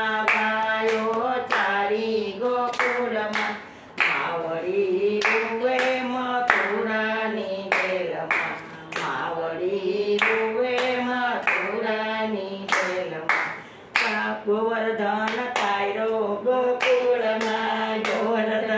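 Two women singing a Gujarati devotional bhajan, keeping time with steady rhythmic hand claps, with brief breaks in the singing between lines.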